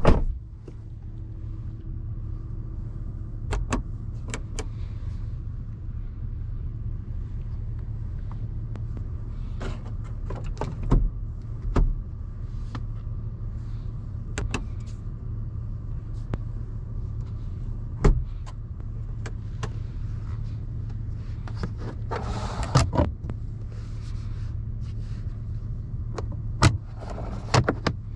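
Steady low hum inside a 2020 Honda Pilot's cabin, broken about a dozen times by short sharp clicks and knocks as interior controls and the overhead light are handled.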